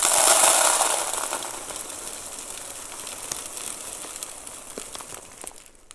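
Vulkatec lava granulate pouring from a plastic bag into a plastic planter: a loud rush of tumbling grains at first that thins out over a few seconds into a trickle with scattered ticks of single stones.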